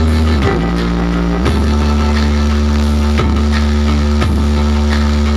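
Loud music played through a large outdoor sound system of stacked subwoofer and speaker cabinets during a sound check, with deep bass notes held for a second or more that step between pitches.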